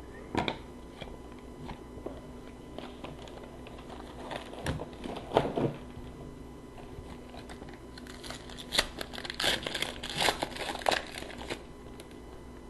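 A hockey card pack's wrapper being torn open and crinkled, with cards handled: scattered light rustles and clicks, then a busier run of crinkling in the second half.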